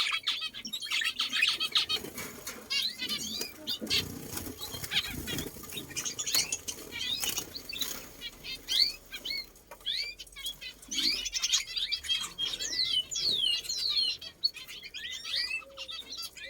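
Many small birds chirping and calling together, with wings flapping as birds fly about. Near the end comes a run of short falling whistles.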